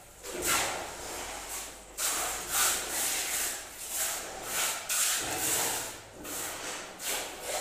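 Mason's trowel scraping over freshly laid wet cement floor in a series of irregular strokes, roughly one or two a second.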